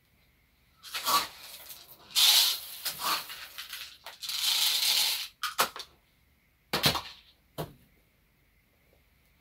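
Whole dried corn kernels rattling as they are poured from a cup through a plastic funnel into a flannel pouch, in a few separate pours. These are followed by a few sharp knocks.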